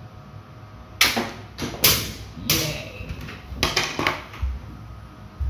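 Plastic toy dart revolver handled and set down on a hard table: five sharp plastic clacks over about three seconds, the first two loudest.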